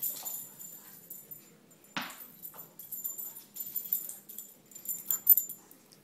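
A dog moving about on a hard floor, its collar tags jingling and clinking in scattered bursts, with a single sharp thump about two seconds in.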